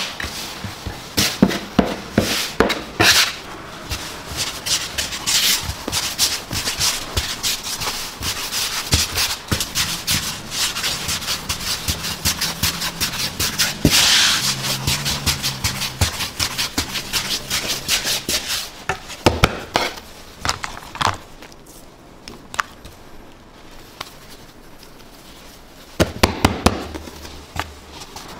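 Food being worked by hand on a work surface: rapid rubbing and scraping with many small knocks. It thins out about two-thirds of the way through, after a few louder knocks, and a short flurry of knocks comes near the end.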